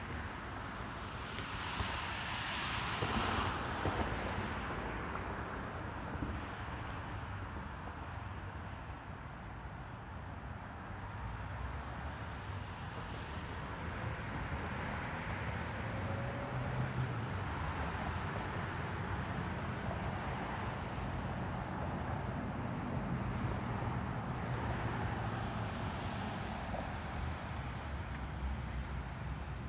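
Outdoor street traffic: a steady low rumble of passing vehicles, with one swelling and fading in the first few seconds and others passing more gently later on.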